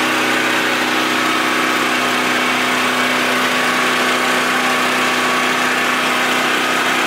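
Champion 3500-watt dual-fuel portable generator running at a steady speed with its economy mode off.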